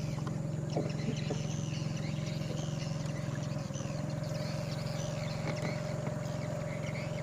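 A motorboat's engine running steadily with a rapid even pulse, towing the canoe, while birds chirp over it. A couple of faint knocks come about one second in.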